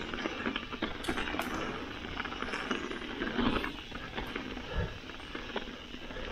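Mountain bike riding fast down a dirt woodland trail: knobbly tyres rolling over earth and dry fallen leaves, with the bike rattling and frequent small clicks and knocks.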